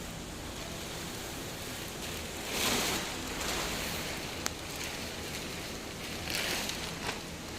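Ultrasonic eyelet welding machine working over a steady hum: two short hissing bursts about four seconds apart, with a sharp click between them and another just after the second.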